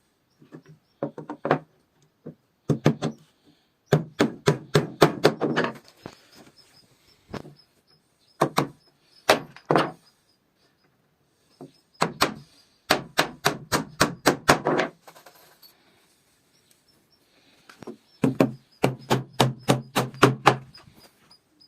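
Repeated hammer or mallet blows on wood, coming in runs of quick strikes, several a second, with short pauses between the runs.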